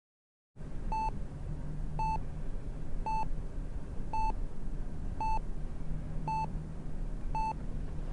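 Hospital bedside heart monitor beeping steadily about once a second, short mid-pitched beeps over a low hum, starting about half a second in.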